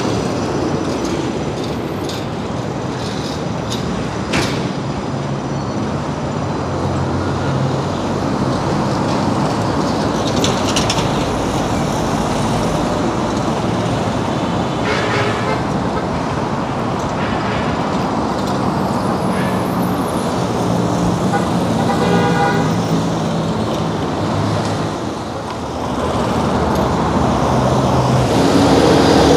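Busy road traffic: cars and minibuses passing on a multi-lane expressway, with engine and tyre noise throughout. A vehicle horn toots briefly about three-quarters of the way through.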